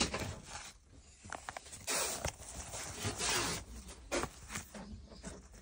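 Paper sleeves of old gramophone records sliding and rubbing against each other as the stack is flipped through by hand, in several short swishes, the loudest about two and three seconds in.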